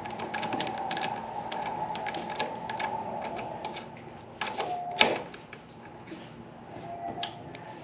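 Ratchet wrench clicking in short irregular runs as the mirror-bracket bolts are tightened, with one louder metallic knock about five seconds in.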